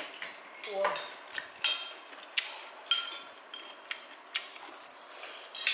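Eating utensils clinking and tapping against bowls and dishes at a meal: scattered light clinks at irregular intervals, some with a short high ring.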